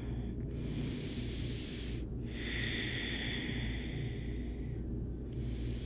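A woman breathing slowly and audibly at rest: a breath of about a second and a half, then a longer one of about two and a half seconds, over a steady low hum.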